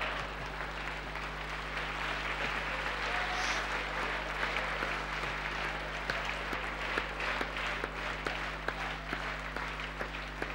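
Audience applauding in a hall, dense at first and thinning to more scattered claps in the second half.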